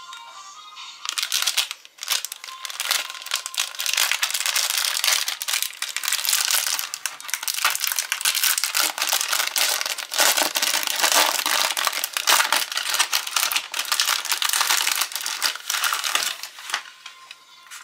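Thin printed plastic wrapper crinkling and tearing as it is ripped open by hand and pulled off a plastic tray, a dense crackle that starts about a second in and stops just before the end.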